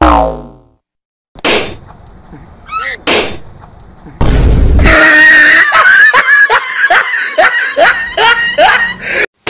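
Prank-video sound effects: a falling cartoon-style glide, then sharp pops like balloons bursting with a high ringing tone held between them, a heavy bang about four seconds in, and a run of repeated pitched cries or laughter.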